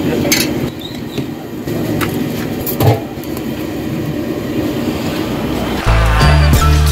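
Street noise with passing traffic and a few sharp clinks of steel ladles and bowls at a food stall. Near the end, background music with a heavy bass beat cuts in.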